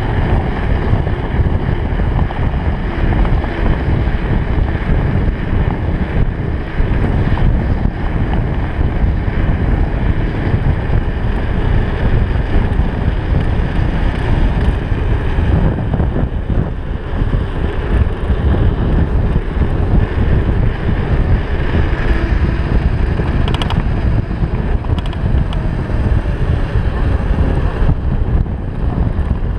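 Steady, heavy wind buffeting on a handlebar-mounted GoPro's microphone during a fast mountain-bike descent, mixed with the rumble of the tyres on asphalt.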